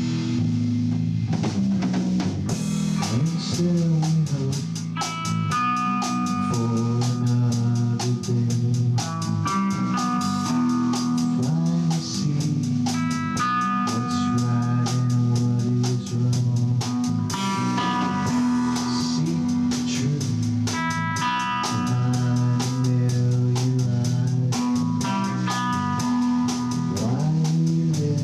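Rock band playing an instrumental passage: a Pearl drum kit beaten hard in a fast, steady beat with cymbals, over electric guitar and bass.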